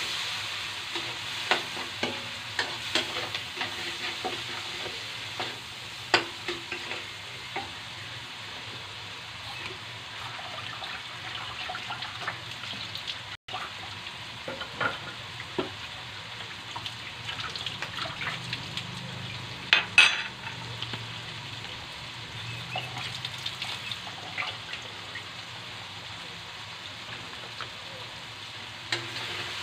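Chopped tomato, onion and chili sizzling in hot oil in a stainless steel wok. A metal spatula scrapes and clinks against the pan in the first several seconds, with occasional knocks later, the loudest about twenty seconds in.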